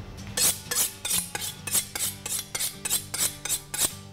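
Chef's knife blade being honed on a steel sharpening rod: about a dozen quick scraping strokes of metal on metal, roughly four a second.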